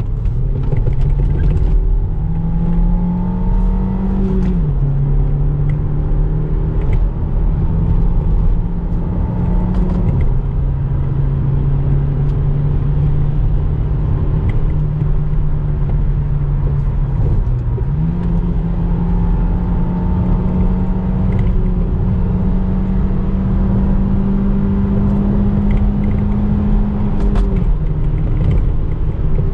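Renault Espace 2.0 Turbo's four-cylinder petrol engine running steadily while driving, over a constant road and tyre rumble. Its note drops about four seconds in and again about ten seconds in, climbs back up just past the middle, and eases down near the end.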